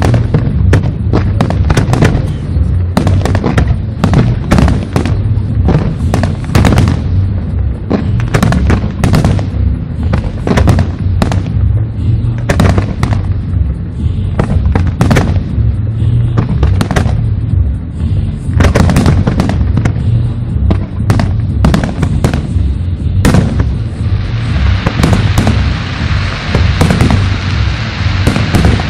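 Fireworks display: a rapid barrage of shell launches and bursts, several sharp bangs a second, over a continuous deep rumble of booms. About twenty-four seconds in, a steady hiss joins the bangs.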